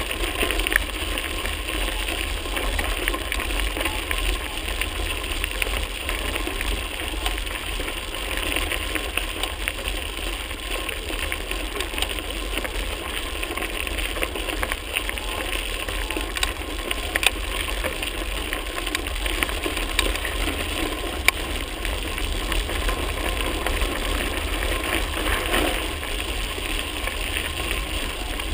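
Mountain bike riding over a gravel track: a steady noise of tyres on loose stones, with a low wind rumble on the microphone and a few sharp rattles.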